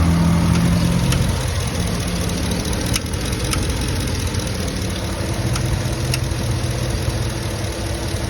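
2007 GMC Yukon V8 engine idling steadily, with sharp, irregular ticks every second or two over the running. This is the noise taken for a bad lifter or rocker arm, though a listener doubts it is a rocker.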